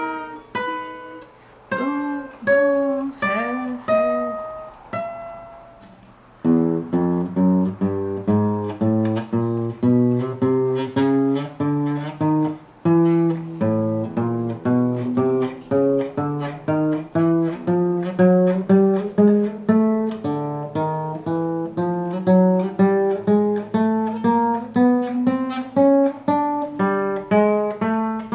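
Acoustic guitar playing single plucked notes fret by fret up the neck. A few spaced notes come first, then from about six seconds in a steady run of about two notes a second, stepping gradually higher in pitch.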